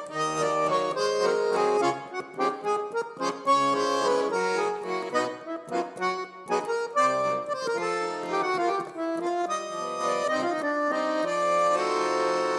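Instrumental intro theme music: a lively tune of quick, short notes, settling on a held chord near the end.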